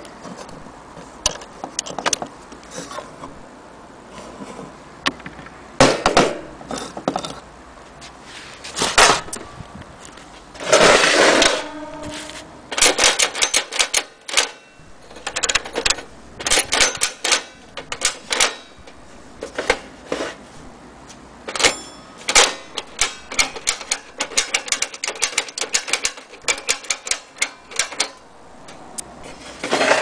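Mettoy Junior tin toy typewriter clicking as its keys are pressed, in quick irregular runs of strikes through the middle and latter part. Scattered single clicks come at first, and a short scraping rasp about eleven seconds in.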